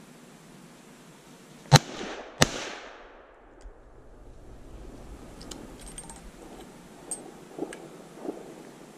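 Two shotgun shots about 0.7 s apart, the second trailing off in a short echo, followed by a few faint clicks.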